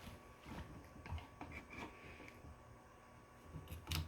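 Faint scattered clicks and light knocks of kitchen handling while a pompano is being cleaned, with one louder knock near the end.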